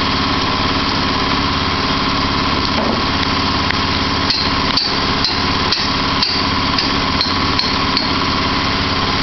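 Small engine of a homemade band sawmill running steadily. From about four seconds in, a run of about eight sharp metallic clinks, roughly two a second, is heard over it.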